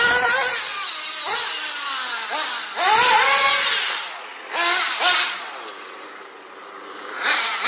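A radio-controlled off-road car's motor revving, its whine rising and falling in pitch several times as the car speeds up and slows; loudest about three seconds in and quieter around six seconds in.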